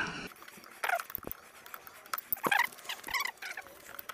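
Light clicks and knocks of hand work on a motorcycle's intake hose and clamp, with a few short squeaks, one of them a quick rattling squeak about three seconds in.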